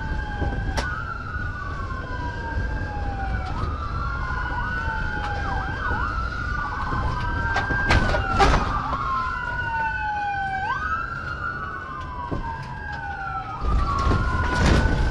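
Police car sirens wailing: two out of step with each other, each climbing slowly in pitch and then dropping, the rising and falling lines crossing. Under them runs the steady rumble of the cruiser driving over rough ground, with a few sharp knocks about a second in and about eight seconds in. The rumble gets louder near the end.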